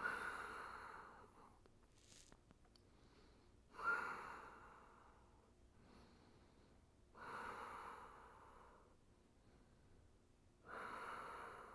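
A man breathing slowly: four audible breaths about three and a half seconds apart, each starting suddenly and trailing off over a second or so.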